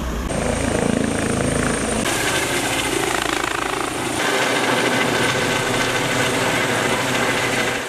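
Eurocopter EC135 trauma helicopter lifting off and flying overhead: a rapid rotor beat with a high steady turbine whine. The sound changes abruptly a few times.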